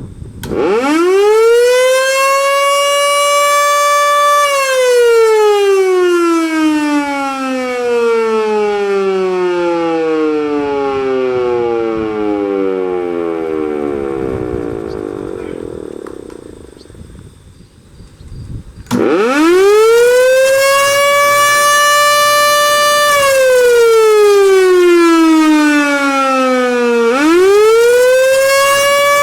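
Federal Signal Model 2 electromechanical siren winding up to a steady, rich tone within about two seconds. It holds for a few seconds, then coasts slowly down in pitch for over ten seconds once power is cut, fading out. It is switched on again and winds up sharply, sags in pitch, and is powered back up to full pitch near the end.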